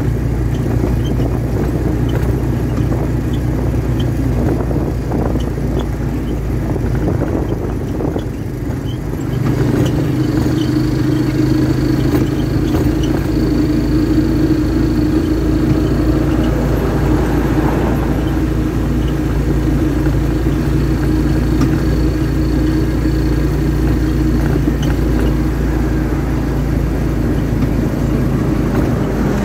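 Vehicle engine and road noise heard from inside a moving vehicle, a steady rumble that grows louder about a third of the way in, when a steady hum and a faint high whine join it.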